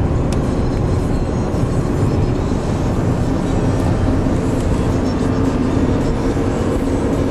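Steady road and engine noise heard inside a car's cabin at highway speed.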